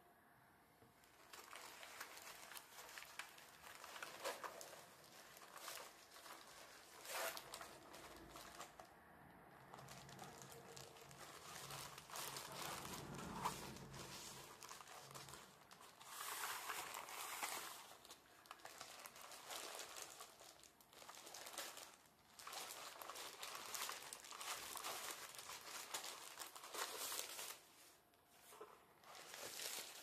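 A keyboard's thin plastic protective sleeve crinkling and rustling in bouts as the keyboard is handled out of it, with small clicks and taps throughout. A lower rubbing sound comes about halfway through.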